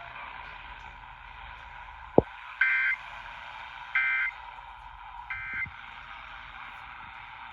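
Emergency Alert System end-of-message data tones received over AM radio: three short buzzy bursts of digital warble about a second and a half apart, closing the alert test. There is steady radio hiss throughout, and a sharp click about two seconds in.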